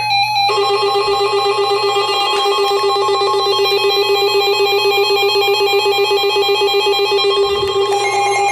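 Electronic alert tone at the start of an Emergency Alert System warning: a loud, continuous buzzy tone with a fast flutter, its pitch pattern shifting shortly before the end. It signals that an emergency message is about to be read.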